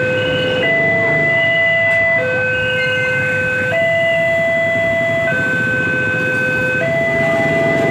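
Alkmaar MO railway level crossing's new electronic warning alarm sounding a loud hi-lo two-tone signal, switching between a higher and a lower note about every second and a half, over the low rumble of waiting traffic. It warns that the barriers are closed and a train is approaching.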